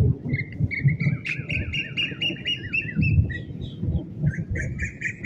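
Birds calling in fast runs of short repeated notes, one run for about three seconds and another starting near the end, over a low, uneven rumble.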